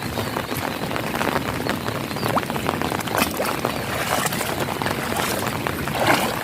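Steady rainfall, a dense hiss with many small drop hits pattering throughout.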